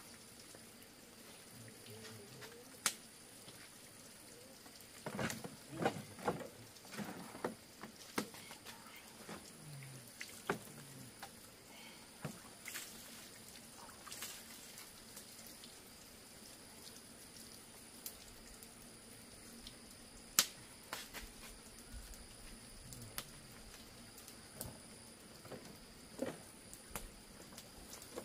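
Scattered light knocks and clicks, most of them bunched about five to eight seconds in, with one sharp click about twenty seconds in, over a faint steady high whine.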